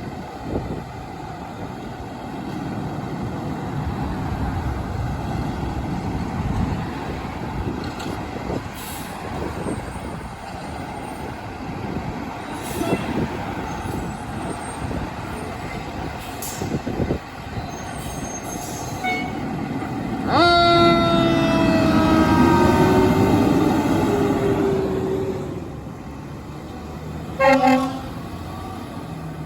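Fire engine's diesel engine rumbling steadily as the apparatus moves, with scattered knocks. About two-thirds of the way through its air horn sounds one long blast of about five seconds, and a short toot follows near the end.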